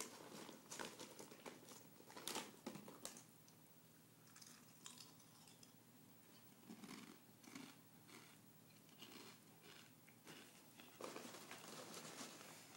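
Near silence with faint scattered clicks and rustles: small handling noises in a quiet room.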